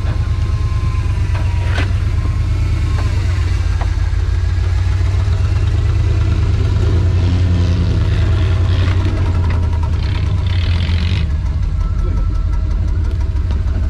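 Four-wheel-drive vehicle's engine running steadily as it crawls a rough trail, with a short burst of noise about ten seconds in.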